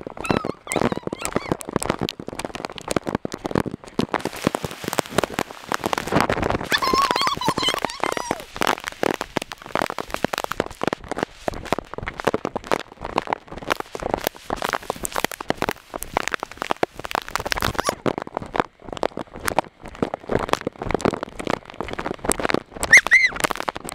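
Heavy rain pattering on a plastic Ziploc bag wrapped around the camera, a dense, irregular crackle of drop impacts. A brief high-pitched squeal near the end.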